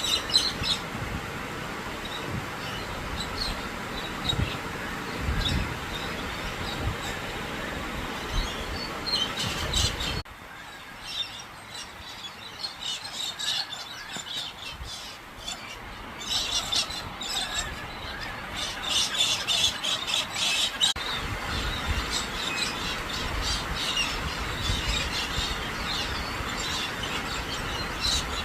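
Birds calling over a steady hiss of rain. The rain noise drops away abruptly about a third of the way through and returns just as abruptly later.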